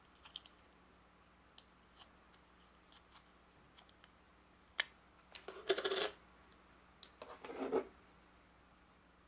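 Thin plastic pudding cup being handled and flexed: scattered small clicks, then two short bursts of crackling plastic about halfway through and near the end.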